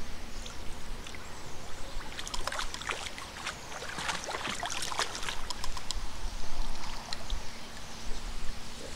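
Hooked fish thrashing at the surface close in, the water splashing around it in a flurry of short splashes that is thickest from about two to seven seconds in.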